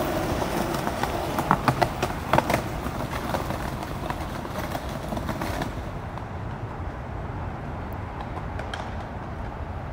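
Skateboards rolling on a concrete path, with several sharp clacks over the first few seconds. About six seconds in this gives way to a quieter, steady outdoor background.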